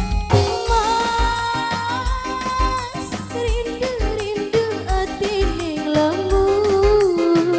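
Cirebon burok music, dangdut-style: a wavering, bending lead melody played over a steady low drum beat.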